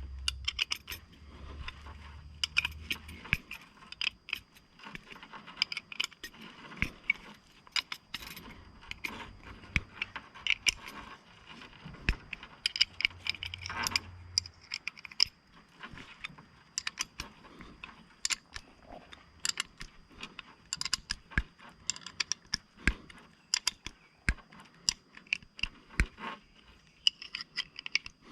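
Irregular sharp metal clicks and clinks as a wrench tightens the bolts of a bolt-type cable swaging tool clamped on a stainless rigging wire, pressing the ferrule.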